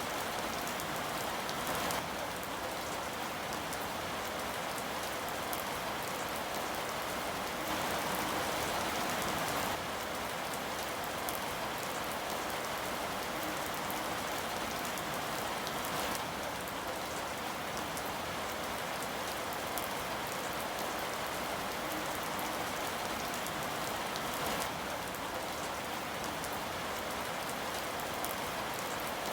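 Steady rain falling on a surface, an even hiss with many fine drop patters and a slight swell in intensity about eight seconds in.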